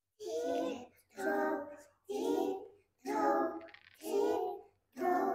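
A child's voice quietly chanting six evenly spaced, sing-song syllables, about one a second.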